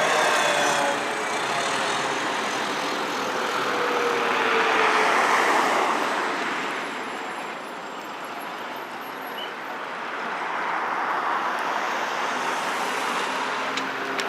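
Road traffic noise: motor vehicles passing on a street, one passing loudest about five seconds in, then a lull and another swelling near the end.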